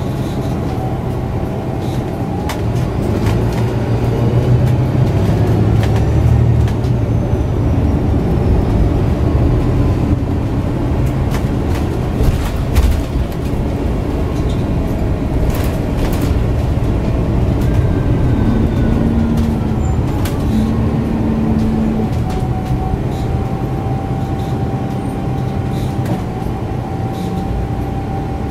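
Inside a city bus under way: its MAN D2066LUH six-cylinder diesel running under the floor with steady road noise, a little louder a few seconds in. Fittings and panels give scattered clicks and rattles throughout.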